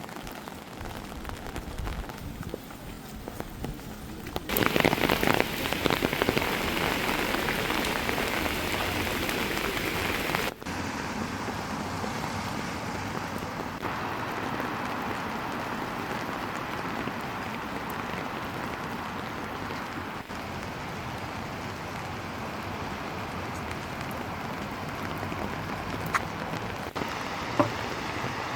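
Steady rain falling, louder for about six seconds from around four and a half seconds in, then dropping back abruptly, with a few sharp taps near the end.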